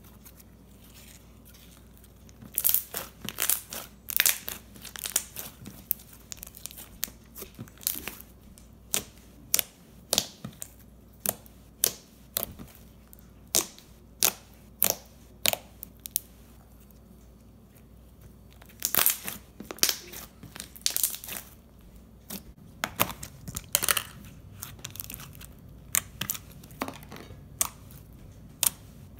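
Slime being squished, poked and stretched by hand, making a run of sharp, irregular sticky pops and clicks in clusters, with a short pause about two thirds of the way through.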